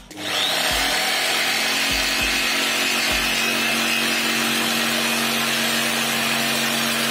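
Corded jigsaw running steadily, its blade sawing through plywood.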